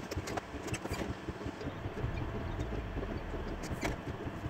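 Creality Ender 3 S1 Pro 3D printer's stepper motors running as the bed and print head move between probe points during automatic mesh bed levelling, with several sharp clicks from the BLTouch probe pin.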